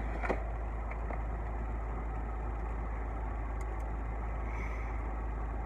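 A steady low hum, like an idling engine, with one short click just after the start.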